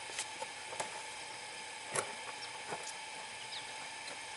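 Faint handling noises of wires and heat-shrink tubing being worked by hand: a few small clicks and taps, the loudest about two seconds in, over a steady faint hiss.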